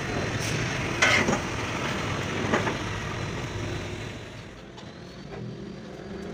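Steady workshop machine noise with a few short metal knocks, the loudest about a second in; the noise grows quieter after about four seconds.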